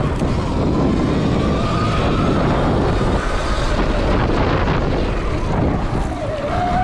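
Stock 2020 Sur Ron X electric dirt bike being ridden on a dirt motocross track: the electric motor's whine rising and falling in pitch with speed, over heavy wind noise on the camera microphone.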